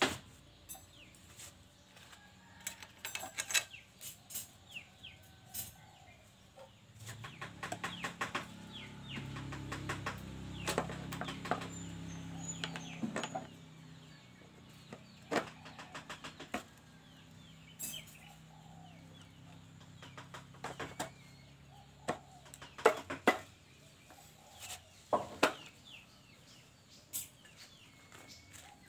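Metal clinks and knocks of a chainsaw chain, bar and side cover being handled and fitted onto a Stihl 070, with chickens clucking in the background. A low rumble swells and fades again in the first half.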